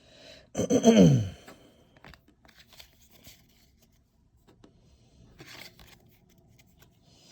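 A man's short, loud groan with a falling pitch, right after pulling another Pikachu card. After it come faint clicks and a brief rustle of trading cards and packaging being handled.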